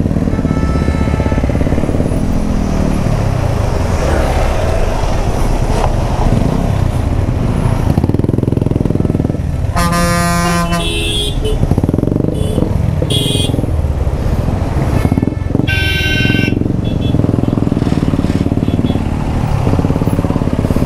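Hero Xpulse 200 motorcycle running steadily at road speed, with engine and road noise throughout. Other vehicles' horns honk over it: one loud horn about halfway through, then shorter high-pitched honks a few seconds later.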